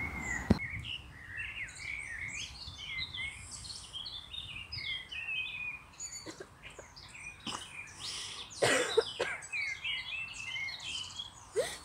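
Small birds chirping and singing, many quick overlapping notes, with a couple of short sharp noises about three-quarters of the way through.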